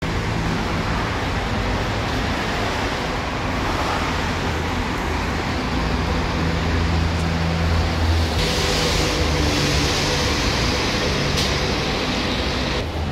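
Steady road traffic noise with a low engine hum running under it. A higher hiss joins about eight seconds in and stops just before the end.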